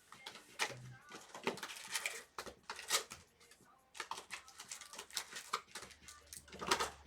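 Trading card hobby boxes and their plastic wrap being cut and opened by hand: an irregular run of clicks, crinkles and rustles of cardboard and plastic.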